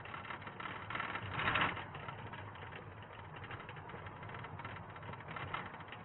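Faint, steady engine and tyre noise inside a moving police car on a wet road, with a brief swell about a second and a half in.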